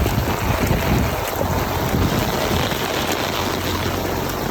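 Heavy rain with wind buffeting the microphone: a dense, steady hiss of rain over gusty low rumbling.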